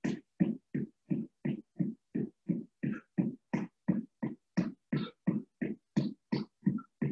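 Footfalls of a person running in place doing high knees on a hardwood gym floor. Steady thuds come about three a second, each cut off sharply with silence between.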